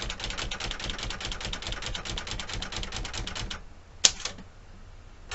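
Smith Corona Galaxie 12 typewriter's carriage clicking rapidly along, about twelve clicks a second, driven by its power space, stopping after about three and a half seconds; then a single sharp clack.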